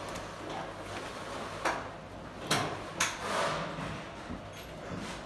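Handling noise from a compression tester being moved about on a bare four-cylinder engine: three sharp clicks and knocks in the middle, the last followed by a short rustle.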